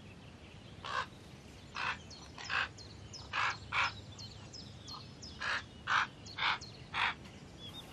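Raven nestlings giving short, harsh begging calls, about ten in a row at uneven intervals. A few thin high chirps sound faintly behind them.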